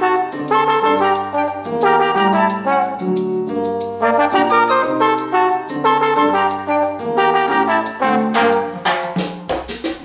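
Background instrumental music: a melody of held notes over a steady beat, with the percussion coming forward near the end.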